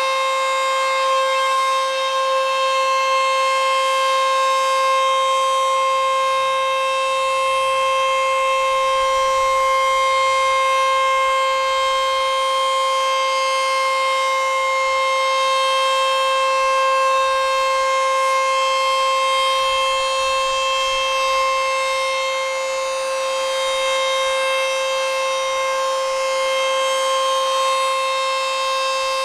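ACA Screamer S-2 outdoor warning siren sounding a full alert: one steady, unwavering tone with no rise or fall in pitch, its loudness swelling and easing slightly.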